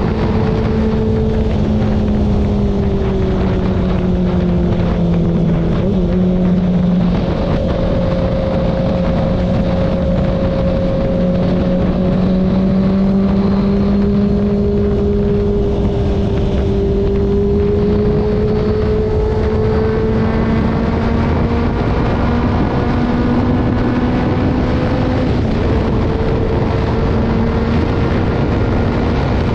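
Motorcycle engine running at highway speed under a constant rush of wind over the microphone. The engine note drops a little about a second and a half in, jumps back up around six seconds, and climbs slowly in the second half as the bike speeds up.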